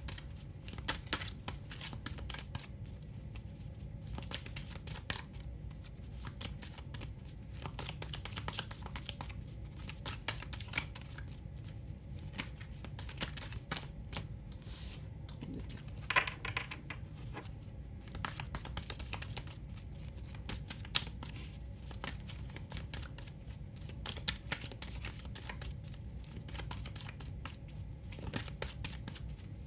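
Oracle cards being shuffled and handled over a table: a continuous run of soft papery rustles, flicks and small taps, with a couple of sharper snaps in the middle, over a low steady hum.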